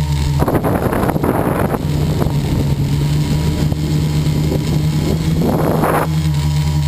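RC model airplane's engine and propeller running steadily at a constant pitch, heard from a camera mounted on the plane. Wind rushes over the microphone in gusts, about half a second in and again at around five and a half seconds.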